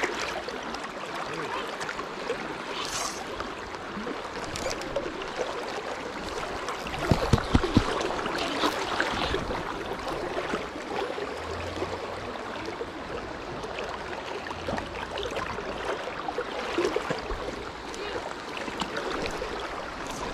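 River current flowing steadily around the wading anglers, a constant even rush of water. A few brief knocks about seven seconds in.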